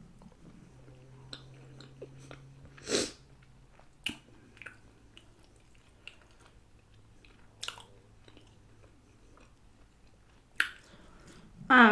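A person chewing and biting food close to the microphone, with a few short sharp mouth sounds, the loudest about three seconds in.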